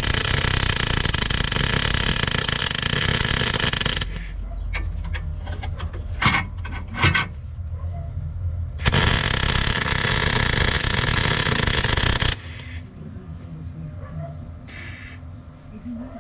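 Welding arc crackling onto the steel of a mini excavator's dozer-blade cylinder mount, in two runs of about four seconds each. Between and after the runs come light clicks and knocks.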